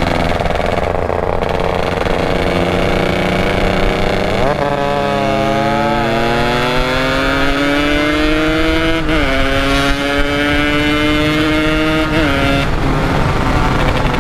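Yamaha RX-King single-cylinder two-stroke motorcycle with a loud exhaust, heard from the rider's seat: it runs steadily, then from about four seconds in accelerates with its pitch climbing, dropping at gear changes about nine and twelve seconds in.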